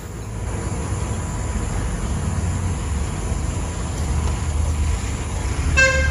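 Homemade RC crane's hoist motor running with a low steady hum as it lifts a mini excavator of about 150 kg off the ground. A short high tone sounds near the end.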